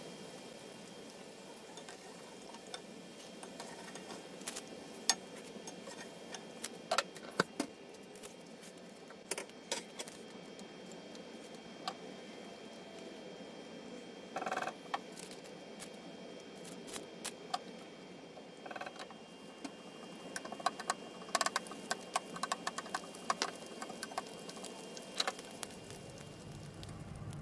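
Hot oil sizzling steadily, with scattered sharp crackles and pops, as balls of batter deep-fry in a wok.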